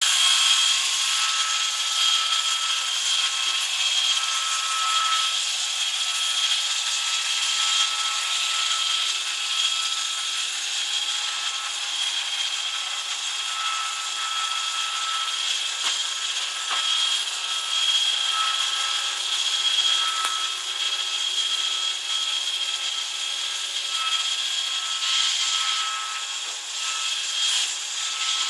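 An iRobot Roomba 555 robot vacuum running steadily, its motor and brushes giving a constant high whine over an even whir.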